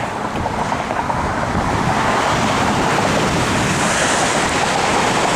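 Ocean surf washing onto a beach, a steady rush that swells a little about two seconds in, with wind buffeting the microphone.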